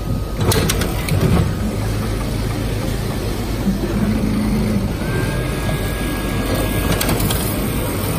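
Automatic fabric-cutting machine at work: a steady mechanical hum with low motor tones that switch on and off as the cutting head moves. There are a few sharp clicks about half a second and a second in, and again near seven seconds, and a higher steady whine from about five to seven seconds in.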